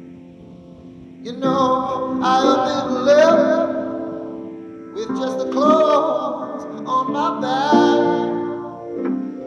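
A male voice singing a slow, drawn-out melody over sustained piano chords, in two long phrases with a short dip between them about halfway.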